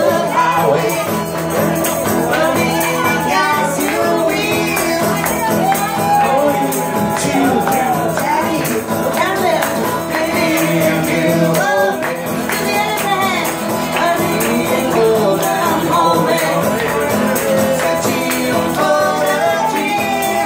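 Live acoustic folk music: a woman sings while beating a large tambourine in a steady rhythm, over a strummed acoustic guitar, with a man's voice singing along.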